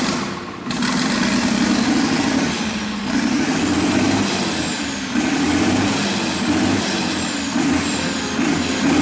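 Rebuilt turbo diesel engine of a Fendt Favorit 818 Turbo tractor running and being revved over and over, a high turbo whistle rising and falling with each rev.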